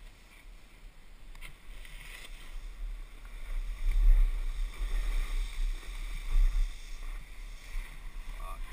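Wind buffeting a GoPro's microphone as a snowboarder rides downhill, with the hiss and scrape of the board on packed snow. It grows louder about three and a half seconds in as speed builds.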